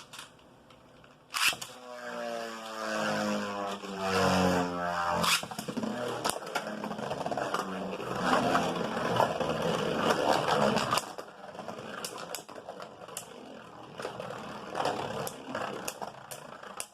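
Two Beyblades launched into a plastic stadium: a sharp snap at the launch, a whirring that falls in pitch for a few seconds, then the spinning tops clashing and grinding loudly for several seconds before settling into quieter scraping with scattered clicks.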